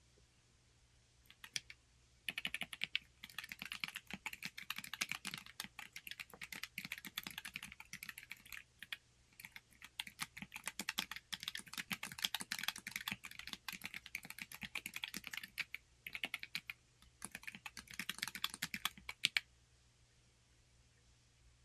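Fast typing on a Corne split mechanical keyboard: dense runs of keystroke clicks in bursts with brief pauses, stopping a couple of seconds before the end.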